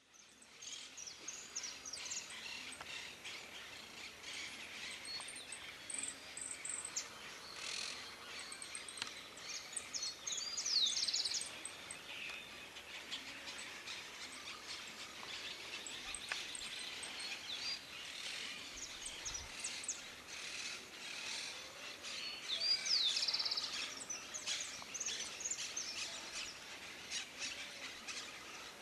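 Birds chirping and calling outdoors, many short high chirps and quick whistled glides overlapping, over a steady background hiss.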